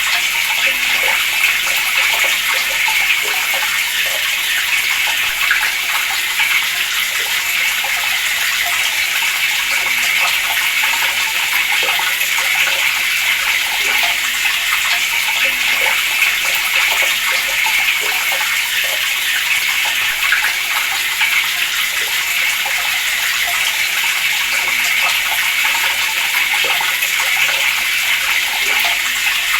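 Water running steadily from a tap, an even, unbroken hiss.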